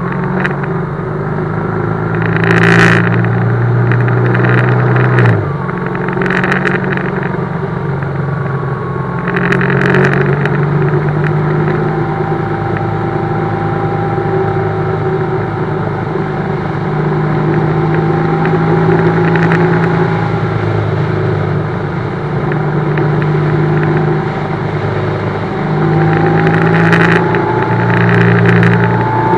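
BMW GS motorcycle engine running steadily under way, its note dropping once about five seconds in, with short bursts of rushing noise a few times.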